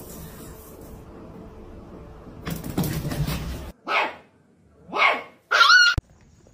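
A dog barking three times, short high barks about a second apart, the last one the loudest.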